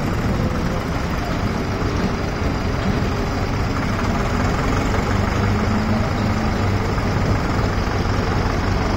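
Hindustan 80 hp tractor's diesel engine running steadily at low revs, pulling a heavily loaded sugarcane trailer.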